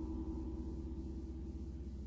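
A 38-inch Paiste Symphonic gong ringing out and slowly dying away, a steady low hum of several tones left after the brighter shimmer has faded.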